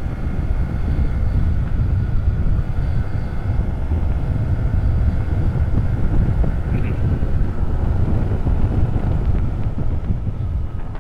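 Motorcycle riding at speed on a downhill mountain road, its engine running steadily under throttle beneath heavy wind rush on the microphone.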